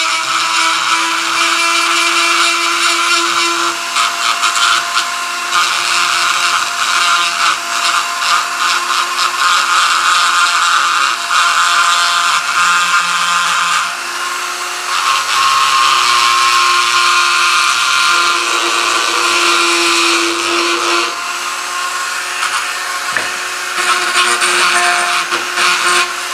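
Dremel rotary tool running with a steady whine, its small bit grinding at the leg of a lead toy figure. The grinding eases for a moment about halfway through and again for the last few seconds as the bit comes off the work, while the motor keeps running.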